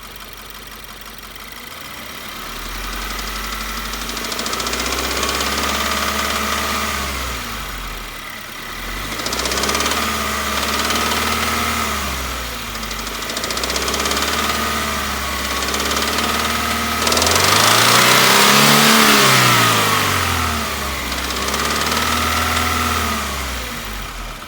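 2016 Subaru's boxer engine revved from idle and let fall back about five times, the fourth rev the highest and loudest. The engine has a knock or rattle that the owner is trying to show.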